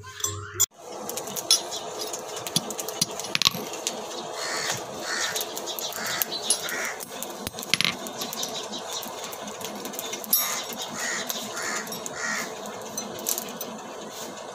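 Crows cawing in two short runs of evenly spaced caws over a steady outdoor background noise, with a few sharp clicks of brass jaw-harp parts being handled.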